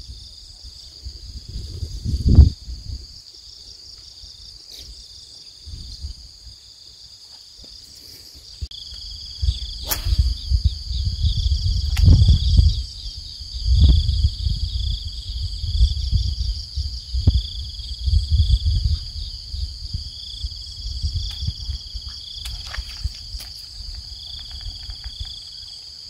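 Steady high-pitched insect chorus with a pulsing, chirping lower band. Over it come loud low rumbles and bumps close to the microphone, thickest from about nine seconds to twenty seconds in, with a few sharp clicks.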